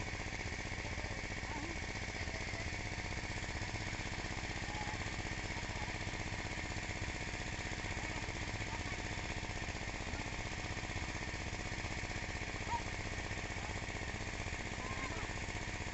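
A small engine running steadily, with a rapid, even chug.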